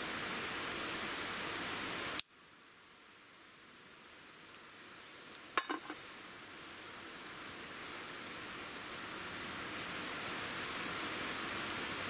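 Small wood fire burning in a compact firebox stove: a steady hiss with faint scattered crackles. The sound cuts out suddenly about two seconds in and slowly rises back, and a short cluster of clicks comes about halfway through.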